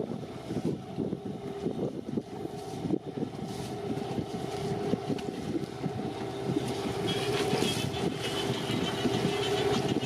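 Motorboat engine running steadily on the water, a constant drone that grows a little louder in the second half.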